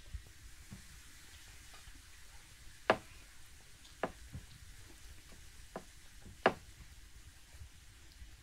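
Tableware clicking and tapping on a wooden table as people eat: a few sharp clicks over a faint background, the loudest about three seconds in and again three and a half seconds later.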